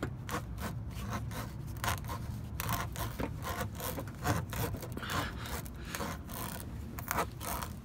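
Tire plug kit's spiral rasp tool being worked in and out of a screw hole in a car tire's tread, scraping against the rubber and steel belts in repeated irregular strokes as the puncture is reamed out before plugging.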